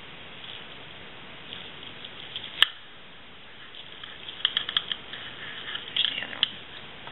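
Small clicks and taps of metal dissecting instruments working in wet tissue in a dissecting tray over a steady hiss, with one sharp click about two and a half seconds in and a cluster of quick ticks in the second half.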